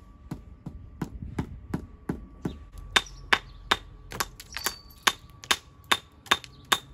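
Hammer working stone in steady repeated blows, about three a second, each with a short ring. The blows grow louder about three seconds in.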